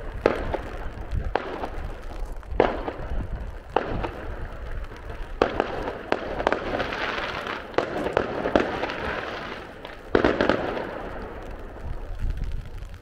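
Aerial fireworks bursting: a string of sharp bangs, roughly one every second or two, each trailed by crackling, thinning out near the end.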